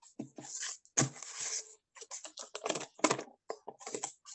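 Irregular run of clicks, taps and rustles over a video call, cutting to dead silence between them.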